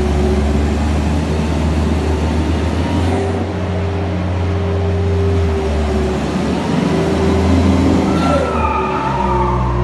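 Bobcat skid-steer loader's engine running steadily under work, its pitch shifting slightly as it moves. A wavering higher whine comes in near the end.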